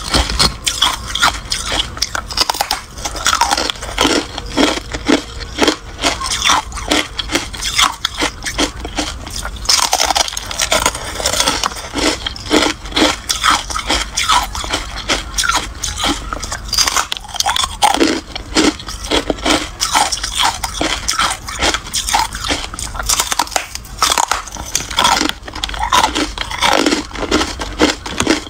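Carbonated ice, a white, frosty block, being bitten and crunched in the mouth, with many crisp crunches in quick succession throughout.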